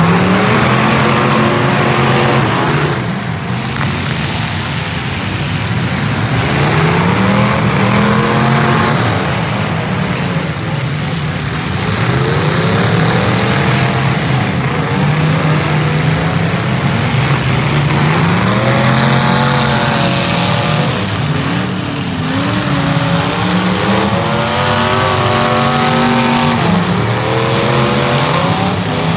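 Engines of several demolition derby cars revving hard at once, their pitches rising and falling over one another above a constant din.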